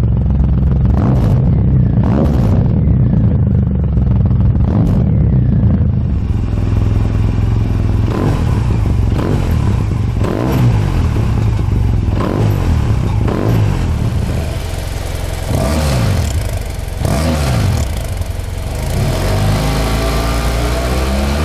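Three motorcycle exhausts revved in turn: first a cruiser's chrome exhaust with sharp throttle blips, then a Honda Silverwing GT600 through a Moriwaki aftermarket exhaust, then a BMW F700GS parallel twin through its stock exhaust. Each is revved up and let fall back over and over.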